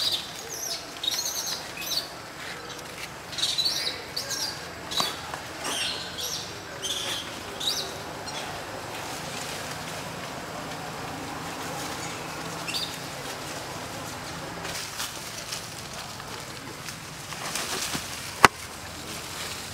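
A run of short, high-pitched chirps and squeaks, thickest in the first half. A single sharp click comes near the end.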